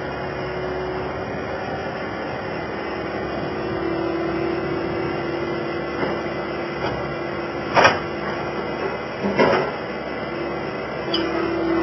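Skid steer loader running steadily, with three short sharp knocks in the second half, about a second and a half apart.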